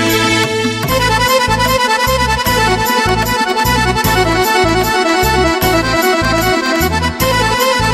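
Instrumental interlude of a song: a melody over a steady bass beat of about two beats a second, which comes in about a second in.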